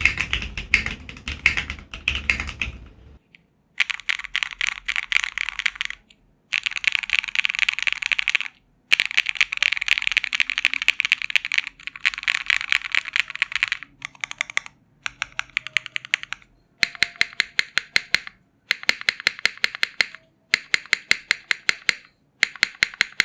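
Typing on a custom HHKB-layout mechanical keyboard with Keygeek Briny keycaps on an aluminium plate: rapid clacking keystrokes in bursts of a second or more, broken by short silences. The later bursts have more even, separate key presses.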